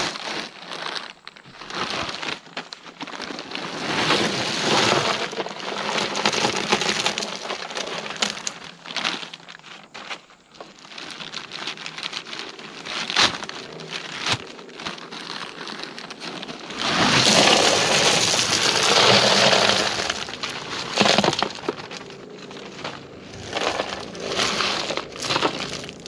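Drainage gravel poured from a bag over a perforated drain pipe: a rattling stream of small stones with many clicks, loudest for about three seconds past the middle, then stones being shifted by hand.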